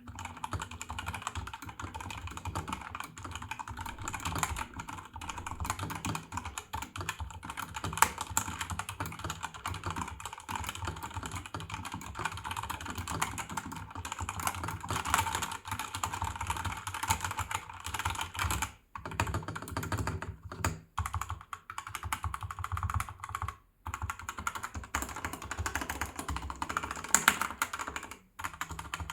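Razer BlackWidow V3 Mini HyperSpeed mechanical keyboard being typed on quickly and steadily: a dense run of key clicks with a few louder strokes, pausing briefly twice in the second half.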